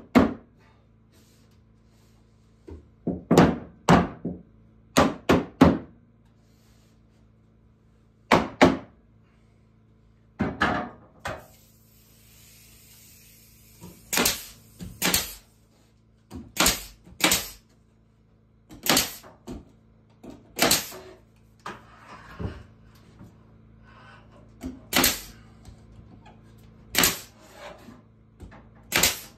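A wooden mallet knocking wooden ceiling boards into place, several sharp knocks in small groups over the first ten seconds or so. From about twelve seconds in, a pneumatic nail gun fires about ten nails into the boards, one every second or two.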